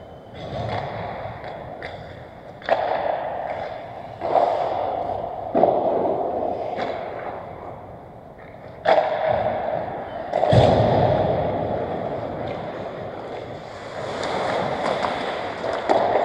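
Ice hockey play on an indoor rink: about six sharp knocks of puck and sticks, each ringing on in the arena's echo, over the scrape of skates on the ice.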